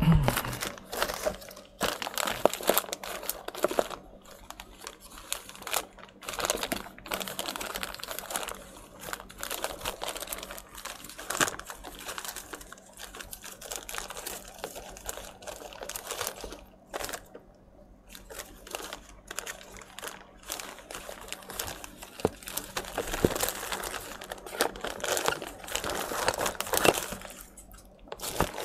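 Irregular crinkling, small clicks and taps of hands handling small parts and tools on an electronics repair bench, over a faint steady hum.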